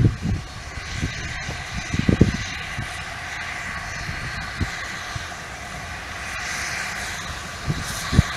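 Distant narrow-gauge steam locomotive working a train, heard as a steady hiss and rumble, with irregular low rumbles rising and falling over it.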